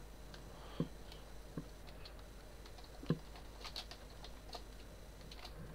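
Faint computer keyboard typing: an irregular run of scattered key clicks as a file name is typed, a few strikes louder than the rest.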